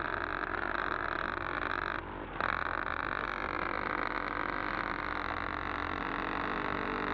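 M134 six-barrel minigun firing a long continuous burst, the shots merging into one steady buzz, with a brief break about two seconds in.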